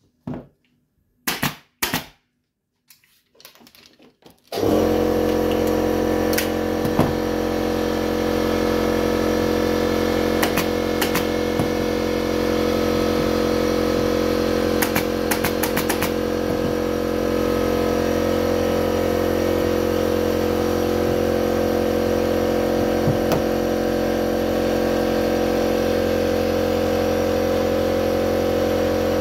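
A pneumatic upholstery staple gun fires a few sharp shots, then about four and a half seconds in an air compressor starts and runs steadily with an even motor hum. A few more staple-gun shots click over it in the middle.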